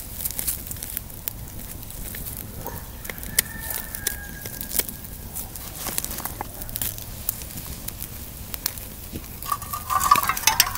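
Wood fire crackling and popping under a grill grate, scattered sharp snaps through the whole stretch. Near the end comes a brief metallic clatter.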